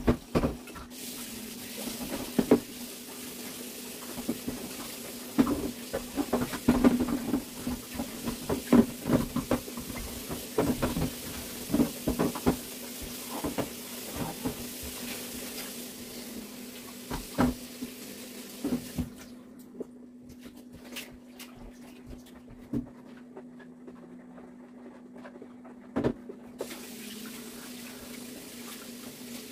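Tap water running with dishes and utensils knocking and clinking, as in washing up, over a steady low hum. About two-thirds of the way through the water stops for several seconds, then runs again.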